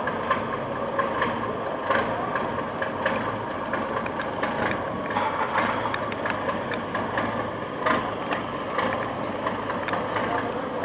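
Fishing boat's engine running steadily, with a dense mechanical clatter over a low hum.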